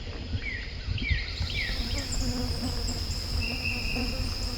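Woodland insects making a steady high buzz, with a series of short, falling bird chirps in the first two seconds and a brief held bird note about three and a half seconds in.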